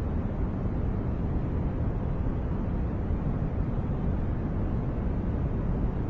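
Steady white-noise track: an even, unchanging rush of noise with no tones or rhythm. It is deep and muffled rather than hissy, most of its energy low down.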